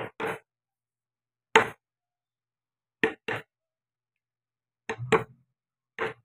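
Woodcarving chisel being struck into wood: about eight short, sharp knocks, several in quick pairs, every second or so.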